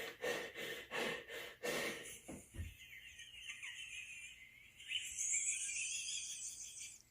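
A person laughing helplessly, out of breath, in wheezing gasps a few times a second. About two seconds in, this turns into a long, thin, high-pitched wheeze that cuts off just before the end.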